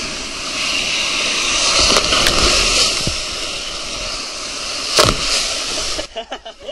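Water rushing down a water slide as a rider in an inflatable ring slides along the flume, with a few sharp knocks against the slide, the loudest about five seconds in. The rush cuts out into a few choppy bursts near the end.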